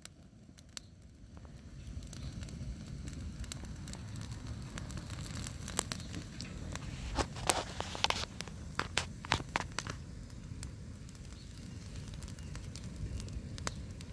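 Burning brush and dry sticks crackling and popping, with a quick run of louder pops about halfway through, over a steady low rumble.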